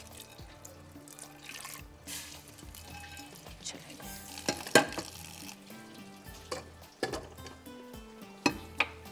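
Water from a cooking pot of boiled moong daal poured out into a steel sink, about four seconds in, among a few sharp clanks of pots and utensils, over steady background music.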